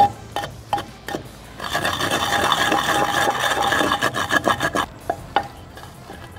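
Wooden pestle grinding soaked poppy seeds with freshly added sugar in an unglazed clay mortar. A few sharp taps open it, then about three seconds of steady rasping as the pestle is rubbed round the bowl, and a few more taps near the end.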